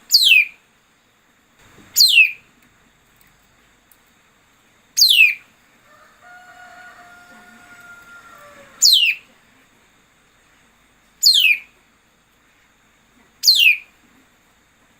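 A songbird calling: six loud, sharp whistled notes, each sweeping steeply down in pitch, repeated every two to four seconds. A fainter, steadier call is heard between them around the middle.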